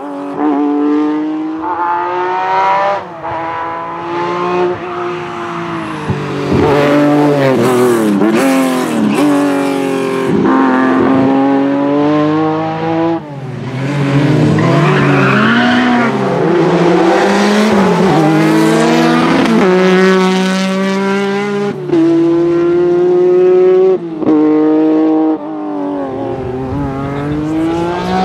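Lancia Stratos rally car's V6 engine driven hard, revving up and dropping back again and again through gear changes and lifts. There is a stretch of tyre noise about halfway through.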